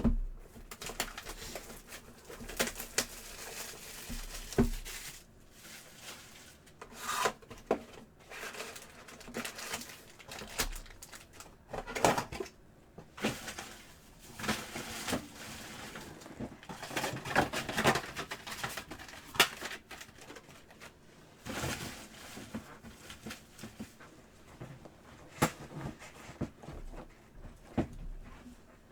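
Trading-card packs being handled and opened: foil wrappers crinkling and cards clicking and sliding against each other in irregular bursts.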